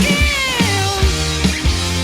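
Rock music with drums and a steady bass line, and a sustained pitched note that glides down in pitch near the start.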